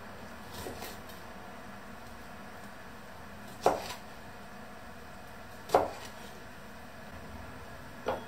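Chef's knife cutting through a lemon into a wooden cutting board: two sharp knocks of the blade on the board about two seconds apart, then a smaller knock near the end.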